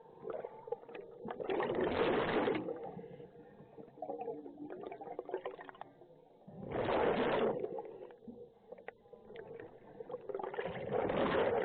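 Scuba diver's regulator underwater: three loud bursts of exhaled bubbles about four to five seconds apart, with quieter clicks and hiss between them.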